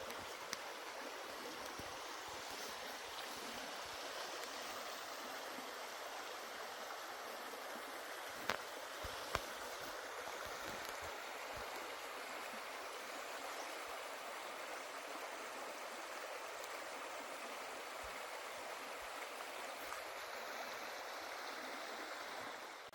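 River water running steadily, with two short clicks about eight and nine seconds in.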